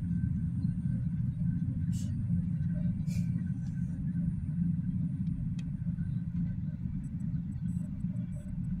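Diesel freight locomotive running, a steady low engine rumble. A faint, rapid, high-pitched ticking starts near the end.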